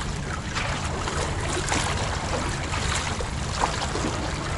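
Sea water sloshing and lapping against a concrete tetrapod breakwater, a steady wash of noise with a low rumble under it and a few faint ticks.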